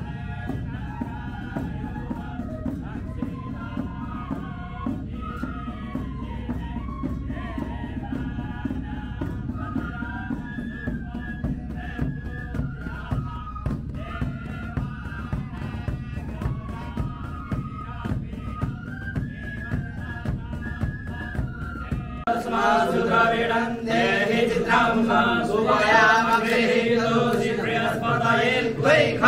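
Several transverse flutes play a winding ceremonial melody over a low, steady background. About 22 seconds in, this gives way suddenly to louder Sanskrit mantra chanting.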